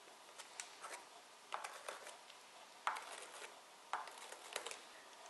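Faint, scattered light clicks and taps of a pencil marking screw positions through the holes of steel concealed-hinge base plates, with the metal hinges knocking lightly against the wooden panel; the two sharpest taps come about three and four seconds in.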